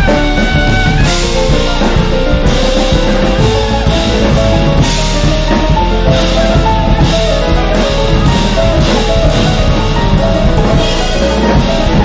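Live jazz band playing: trumpet, electric bass, drum kit and keyboard, with a high held note ending about a second in.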